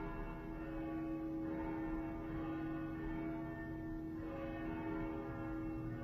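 Church bells ringing, their overlapping tones hanging on and humming, with fresh strikes about a second and a half in and again about four seconds in.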